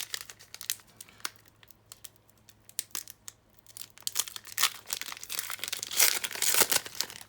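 Foil Pokémon Hidden Fates booster pack wrapper crinkling and being torn open: scattered crackles that grow louder and denser about four and a half seconds in, then stop just before the end.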